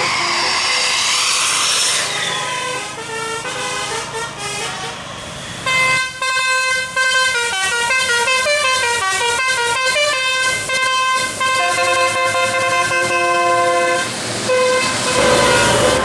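A bus's 'telolet' musical air horn playing a fast tune of stepped notes, with several horn tones sounding together through the middle. There is a wash of vehicle noise at the start and again near the end.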